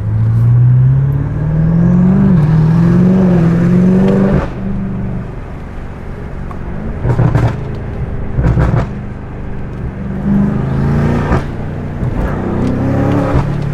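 BMW F90 M5's twin-turbo 4.4-litre V8 with Eventuri intakes accelerating hard, heard from inside the cabin with the windows open. The engine note climbs for about four seconds and drops, then climbs twice more, with a few short sharp cracks in the middle.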